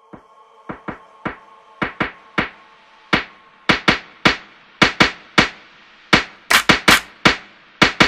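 Percussive intro of an electronic hip-hop track: sharp clap- or snare-like hits in a syncopated pattern, growing louder and more frequent. A soft held tone under the first few hits fades away.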